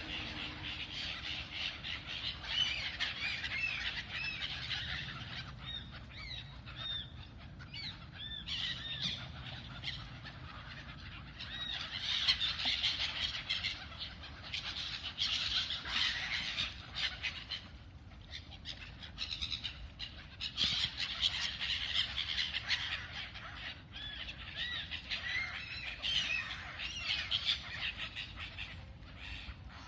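A flock of birds squawking over one another as they squabble, many short harsh calls at once, the din swelling and easing in several waves.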